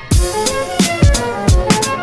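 Background music with a steady drum beat under sustained melodic tones.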